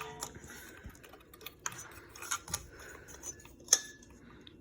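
Scattered light clicks and taps at irregular spacing, from the parts of an old ceiling fan being handled.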